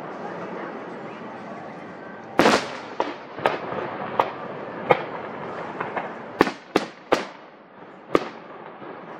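Aerial fireworks shells bursting in a string of about nine sharp booms. The first, about two and a half seconds in, is the loudest, and the rest follow at irregular intervals of half a second to a second and a half.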